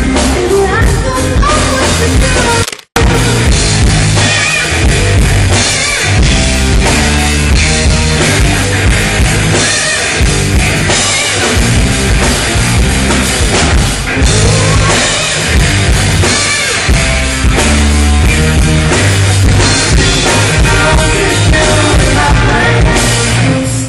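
Live rock band playing loud with singing, drum kit and electric guitar. The sound drops out completely for a split second about three seconds in.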